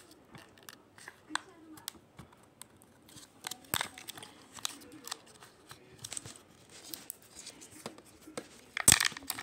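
Packaging being handled close up: crinkling and tearing with many small clicks, a sharp knock about four seconds in and a louder clatter just before the end.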